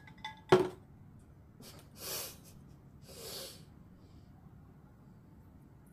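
A young woman's single sharp hiccup about half a second in, followed by two audible breaths a second or so apart.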